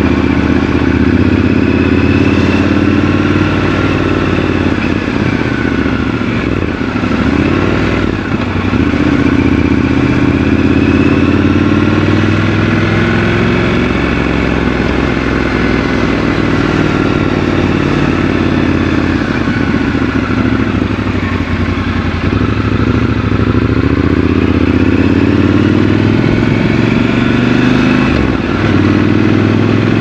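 Triumph Scrambler 1200 XC's 1200 cc parallel-twin engine running on the move, its note rising and falling several times with the throttle.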